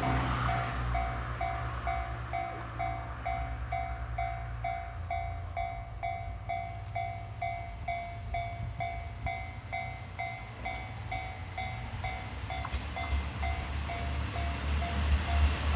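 Japanese level-crossing warning bell ringing in a steady, even rhythm of a little over two strikes a second, stopping just before the end, over a low rumble that grows louder near the end.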